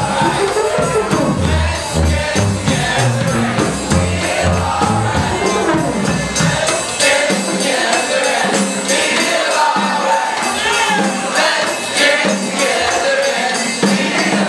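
Live brass band music: saxophones, trombone and trumpets playing with percussion while several voices sing together. The low bass notes stop about halfway through, leaving the horns and voices.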